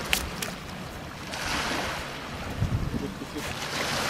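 Sea surf washing up the beach: a hiss that swells about a second in, eases, and swells again near the end. A couple of sharp clicks sound at the very start.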